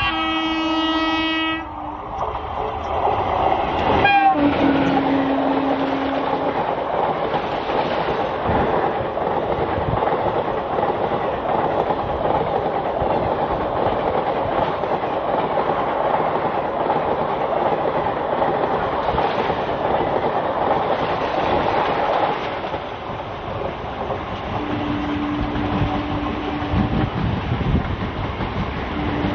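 Indian Railways WAP-4 electric locomotive blowing its horn as it approaches, with a second, lower horn note a few seconds in. Its express coaches then rattle past with a steady clickety-clack of wheels over rail joints for about twenty seconds. Near the end, after the last coach has gone by, short horn notes sound again as an EMU suburban train approaches.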